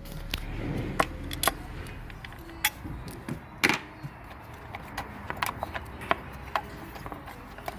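Scattered light metallic clicks and knocks of tools and small parts being handled while the coil packs are unbolted from an MG3 engine, over a low steady hum.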